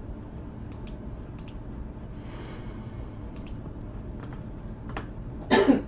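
Scattered light clicks of a computer keyboard and mouse, a few keystrokes at a time, with a brief louder noise just before the end.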